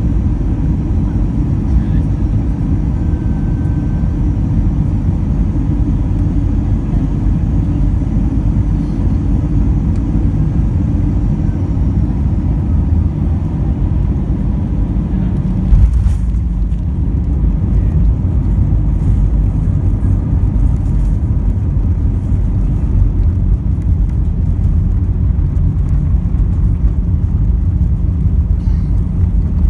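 Inside the cabin of an Airbus A319: steady low engine and airflow noise on final approach. About halfway through comes one loud thump as the wheels touch down, followed by light rattling in the cabin over continued low noise as the aircraft rolls out on the runway.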